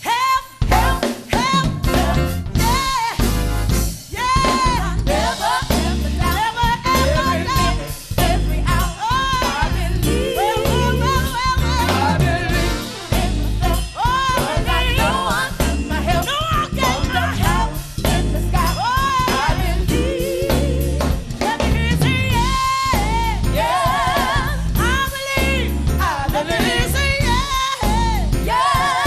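Live gospel-soul song: a lead singer's voice with vibrato over a band with drum kit and bass, with backing voices.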